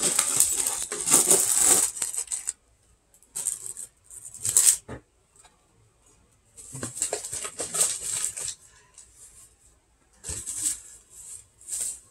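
Snack packaging being handled: a plastic chip bag crinkling and rustling, then a cardboard box shaken and handled, in several irregular bursts with pauses between.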